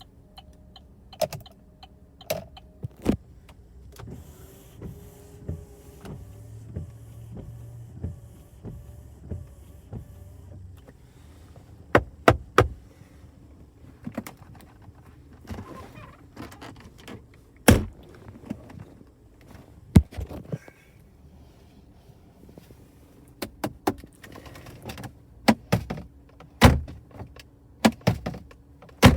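Scattered sharp knocks and clicks from the cabin trim of a Holden VF Commodore ute being tapped and pressed to test its build quality, with a low steady hum for about four seconds a quarter of the way in.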